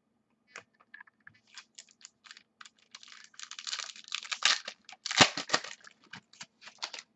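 Foil trading-card pack wrapper crinkling as it is handled and opened, along with clicks of cards and a plastic card holder being handled. Scattered clicks at first give way to dense crackling from about three seconds in, loudest a little past five seconds.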